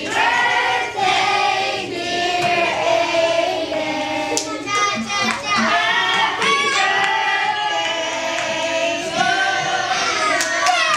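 A class of schoolchildren singing a birthday song together in chorus, with a few hand claps about halfway through.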